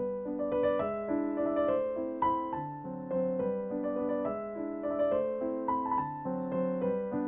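Background piano music: a gentle melody of single notes over soft chords at a steady pace.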